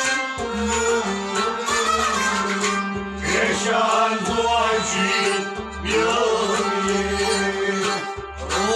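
Live traditional folk song: a man singing a drawn-out melody, accompanied by plucked stringed instruments and a steady drum beat.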